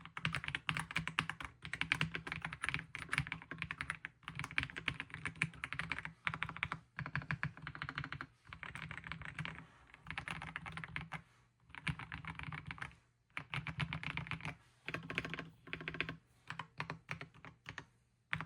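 Typing on an Attack Shark X85 PRO, a gasket-mounted, aluminium-cased 75% mechanical keyboard: rapid runs of keystrokes in bursts of a second or two, broken by short pauses, with shorter and choppier bursts near the end.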